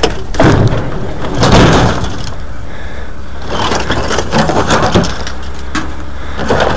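Scrap metal and junk scraping and clattering as they are shoved out of a pickup truck bed, with several sharp knocks over a steady low hum.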